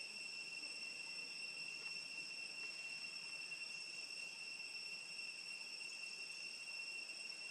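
Insects in the surrounding forest keeping up one steady, unbroken high-pitched drone.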